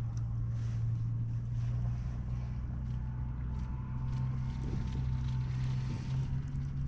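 Steady low rumble of wind on the microphone out on the open water, with faint light ticks scattered through it.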